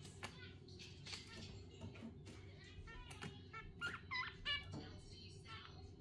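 Pair of budgerigars chattering quietly: a quick run of short chirps, warbles and clicks, with a couple of louder squeaky calls a little past the middle.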